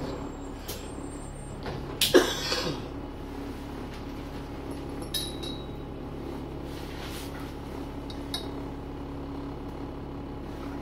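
Bus engine running with a steady low drone inside the cabin, and a loud clatter of loose fittings about two seconds in, followed by a few light clicks.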